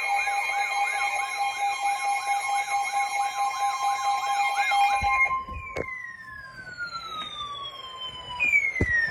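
Emergency Alert System attention signal, a steady two-tone alarm, with a fast siren-like warble over it; both cut off about five seconds in. Long falling tones follow, one gliding down over about three seconds and a second one starting near the end.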